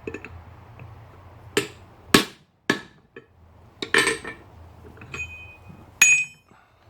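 Hammer blows on metal at the anvil, about seven irregular strikes, as a copper soldering-iron tip is forged. The last two blows leave a short high ring.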